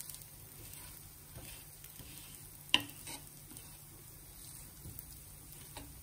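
Dosa sizzling softly on a hot tava, its top just oiled, while a wooden spatula rubs the oil across it. One sharp click comes a little under three seconds in.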